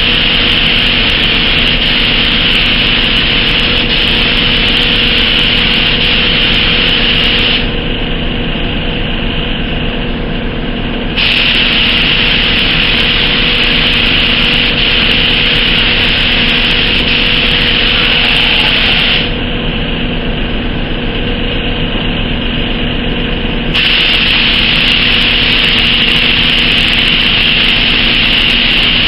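Gravity-feed spray gun hissing steadily as it sprays base coat onto a test panel, after the air pressure was raised to cure an orange-peel finish. The hiss twice drops quieter for a few seconds, about eight and twenty seconds in, over a steady low hum.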